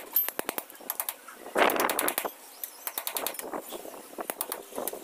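Claw hammer tapping in quick runs of sharp blows on a plastered wall, chipping out a small square opening. One louder gritty scrape of plaster comes about one and a half seconds in.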